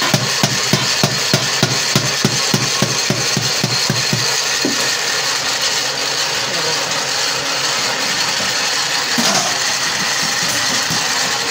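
Hammer blows on the bottom of an upturned galvanized steel bucket, about three a second, stopping about four seconds in, then a couple of single knocks. A steady background noise runs underneath.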